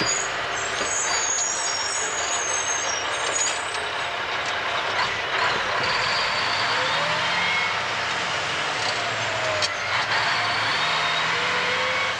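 Mack dump truck's diesel engine running as the truck drives, with dense road and engine noise; the engine's pitch climbs about halfway through. A sharp click sounds near the end.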